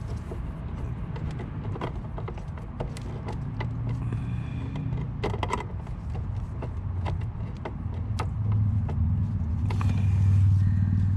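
Small clicks and taps of a screwdriver and wire ends being worked into the screw terminals of an irrigation controller. Under them runs a steady low mechanical rumble that grows louder near the end.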